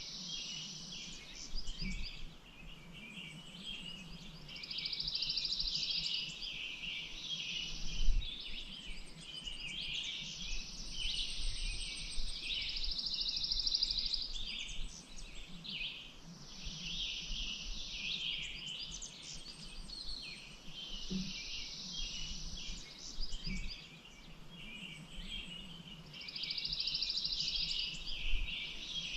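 A chorus of small birds chirping and singing, with a buzzy trill of about two seconds recurring every few seconds, over a faint low rumble.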